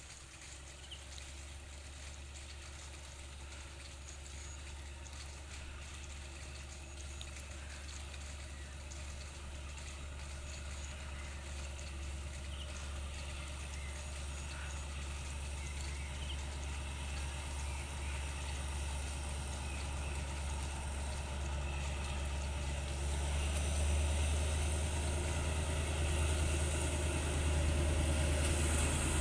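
D10H diesel locomotive hauling a freight train, approaching with a low engine rumble that grows steadily louder, and louder still in the last several seconds.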